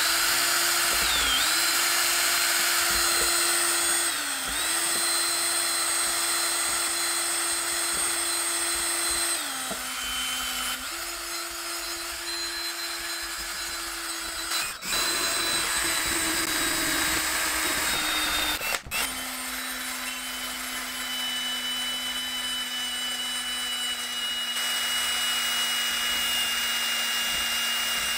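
Power drill spinning a pair of chopsticks in its chuck to whip a thick instant-coffee and honey mixture in a glass bowl. The motor runs steadily, its pitch dipping and stepping lower a few times as the speed and load change, with two brief breaks about 15 and 19 seconds in.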